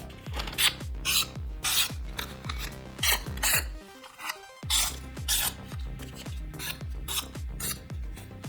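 Repeated scratchy rubbing strokes by hand, about two a second, over background music with a deep bass beat that falls in pitch on each hit and drops out briefly about four seconds in.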